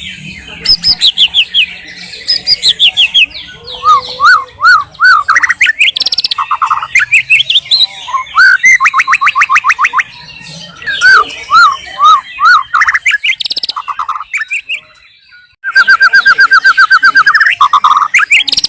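White-rumped shama (murai batu) singing loudly: a varied song of repeated arched whistles, fast rattling trills and high chips. There is a short pause about three-quarters of the way through, then an even, rapid trill.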